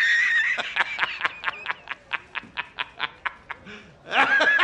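A man laughing hard: a high-pitched shriek of laughter, then a run of quick rhythmic 'ha' pulses, about five a second, that fade away, and a second loud high burst of laughter near the end.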